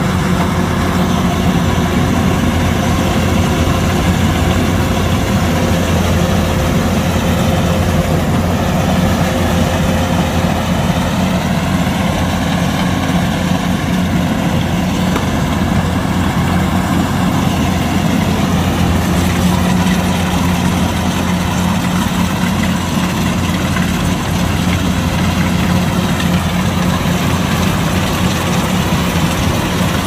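Kubota DC-105X combine harvester's diesel engine running steadily with a constant low hum.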